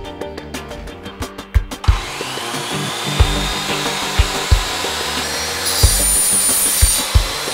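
Bosch GCM 10 MX sliding mitre saw's motor starting about two seconds in, its whine rising and then holding steady, and the 255 mm blade cutting into an aluminium profile near the end with a high-pitched ring. Background music with a steady beat plays throughout.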